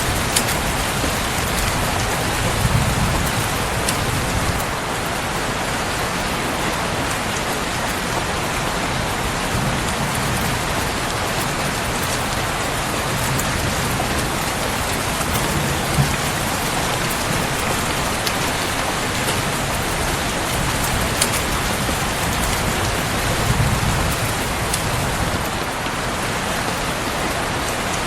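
Steady heavy rain falling. A few sharp clicks stand out over it, and brief low rumbles swell up now and then.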